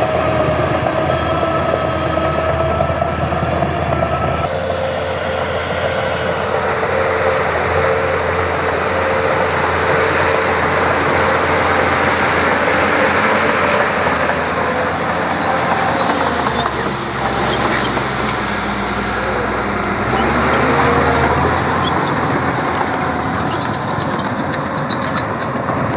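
Heavy diesel earthmoving machinery working, such as a bulldozer and dump trucks. The engines run steadily and their note shifts several times. In the second half there is rapid clicking and clanking.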